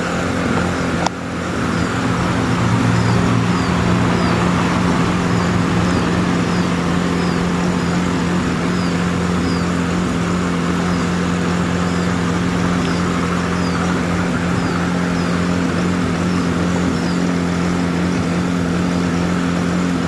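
An engine-driven motor running steadily at a constant pitch, with a sharp click about a second in. A faint high chirp repeats about once a second through the middle.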